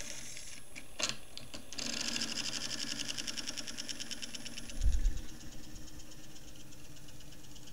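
A 600-watt electric motor running on a PWM controller with a screwdriver pressed against its spinning shaft to brake it, making a fast, steady rhythmic buzzing scrape as it is loaded. A low thump about five seconds in.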